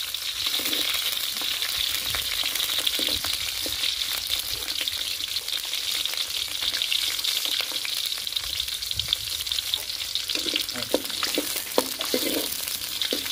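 Garlic sizzling in hot oil in a kadai, stirred as it sautés. Short scraping clicks of the stirring come and go, more of them near the end.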